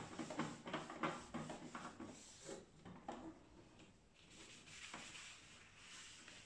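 A cloth wiping across the plastic top of an Epson EcoTank L3156 printer in quick strokes, then the printer's scanner lid being lifted open.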